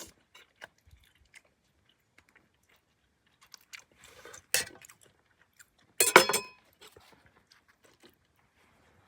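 A person eating close to the microphone: chewing and crunching, with scattered small clicks and two louder crunchy bursts, one about four and a half seconds in and a cluster around six seconds in.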